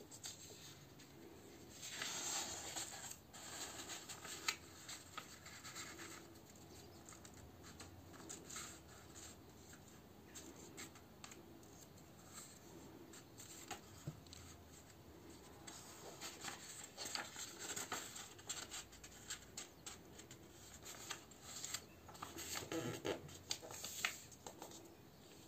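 A sheet of A4 paper being folded and its creases smoothed flat by hand: soft, irregular rustling and scraping with small clicks, louder rustling about two seconds in and again near the end.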